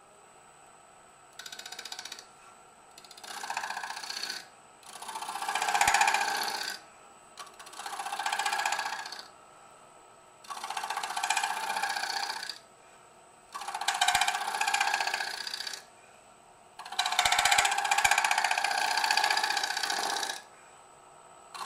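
Bowl gouge cutting a spinning Drake elm crotch blank on a wood lathe, in about seven separate passes of a second or two each with short pauses between; the last pass is the longest.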